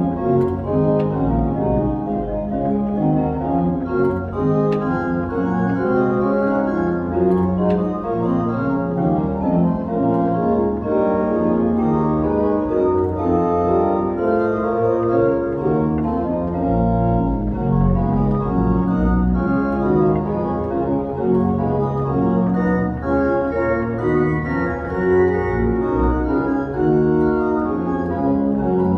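Church organ playing a quick scherzo: a rapid run of short notes on the manuals over held bass notes on the pedals.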